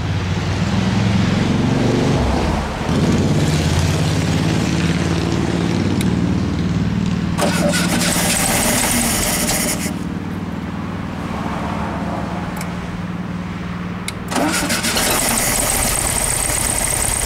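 A 1968 VW Beetle's air-cooled flat-four engine cranks and catches about three seconds in on its first start after years of sitting, then runs, getting louder twice. It is running rough, which the owner puts down to one cylinder missing.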